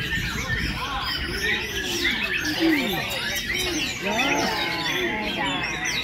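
Many caged songbirds singing at once, a dense overlapping chorus of quick chirps, trills and whistled glides with no pause.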